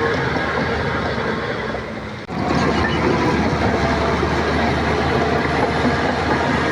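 Shantui crawler bulldozer's diesel engine running steadily with the clatter of its steel tracks. The sound breaks off sharply for an instant about two seconds in and then carries on a little louder.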